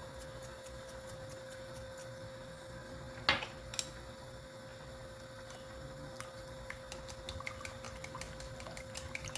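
Steady kitchen hum with a thin constant tone and scattered faint ticks. A sharp click comes about three seconds in, with a smaller one just after.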